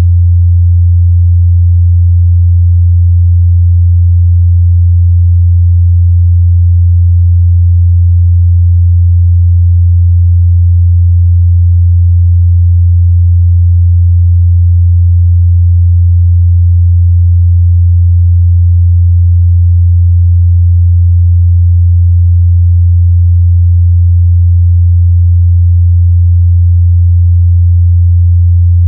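A steady, loud 87 Hz sine-wave test tone: a low, unchanging pure hum in the mid-bass, used to check how a speaker or headphone reproduces that frequency.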